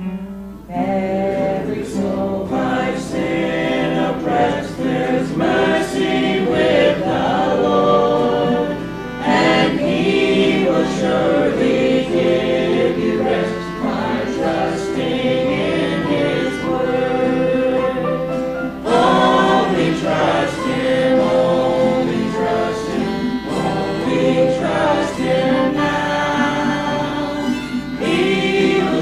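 Choir singing a gospel hymn with instrumental accompaniment.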